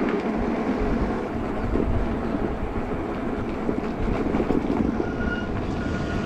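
Wind rushing over the microphone with the rumble of the Juiced HyperScrambler 2 e-bike riding along, steady throughout. A faint, brief high whine sounds twice near the end.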